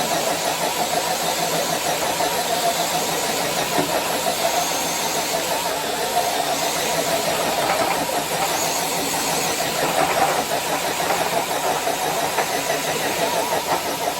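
Electric motor and gear drivetrain of a scale RC crawler truck running steadily under load while pulling a weight of five blocks, a wavering whine.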